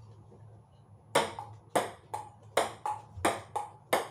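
A ping-pong ball clicks back and forth between rubber paddles and the tabletop in a rally. The rally starts about a second in, with about two or three sharp hits a second.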